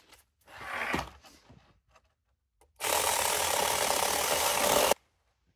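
Small cordless electric mini chainsaw with a 6-inch chain cutting through a dry, hard maple log: a steady cut of about two seconds that stops abruptly, with a shorter, quieter sound about a second in.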